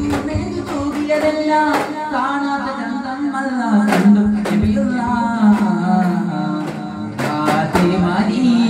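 Daff muttu: voices singing a melody over a steady low tone, cut by a few sharp strikes on daff frame drums, the loudest about four seconds in and near the end.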